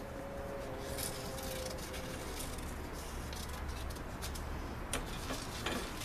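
Scissors snipping through paper a few times, with paper handling, over a steady low hum.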